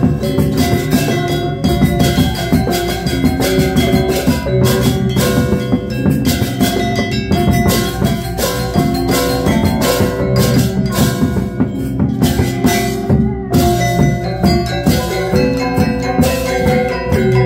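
Balinese gamelan gong ensemble playing: bronze kettle gongs and metallophones struck in a dense, fast stream of ringing notes, with drums beneath.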